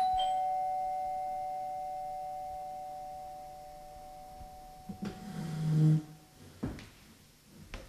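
A doorbell chime rings once, its tone dying away slowly over about five seconds. Near the end comes a brief rustle, then two sharp clicks about a second apart.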